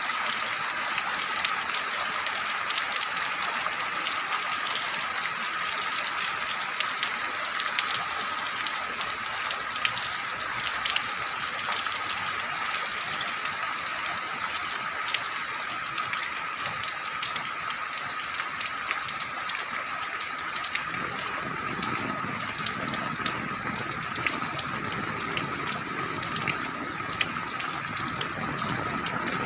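Heavy rain pouring steadily, with a dense patter of sharp drop impacts. About two-thirds of the way through, a deeper rushing layer joins in.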